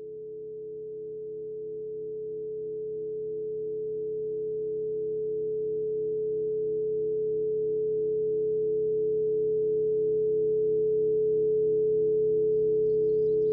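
A steady, sustained electronic drone tone fading in gradually, with a softer tone beneath it that pulses slowly and evenly. High chirping like crickets starts near the end.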